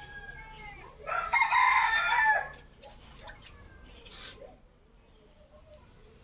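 A rooster crows once, about a second in: a single long call lasting about a second and a half.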